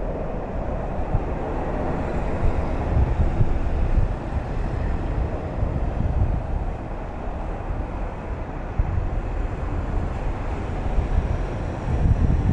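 Steady road noise of vehicles travelling on a toll road: a continuous low rumble that swells and eases, louder about three seconds in and again near the end.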